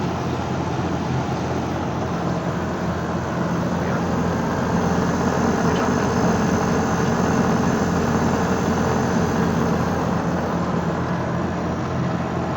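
Split air conditioner's outdoor condensing unit running: the newly replaced compressor humming steadily with the condenser fan, a little louder from about five seconds in. It is running normally and cooling, with its suction line cold.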